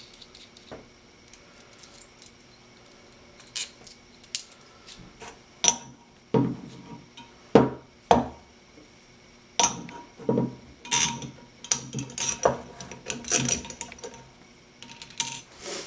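Steel bolts, washers and nuts clinking and perforated steel tubing knocking against the table as the hardware is fitted together by hand. The sharp clinks are scattered at first and come thick and fast in the second half.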